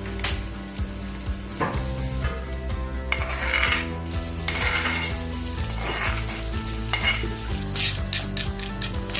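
Food sizzling in a cooking pot while a metal spoon stirs and scrapes it, with several quick clinks against the pot near the end.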